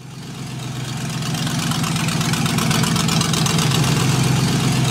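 A car engine idling steadily, fading up from silence over about the first second.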